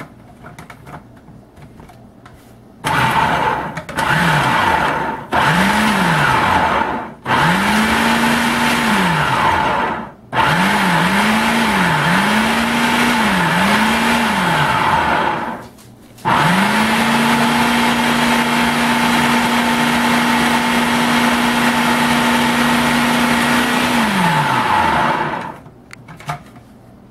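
Electric food processor pulsed several times, its motor spinning up and winding down with each short press, then run steadily for about nine seconds to purée a chunky chipotle barbacoa sauce until smooth.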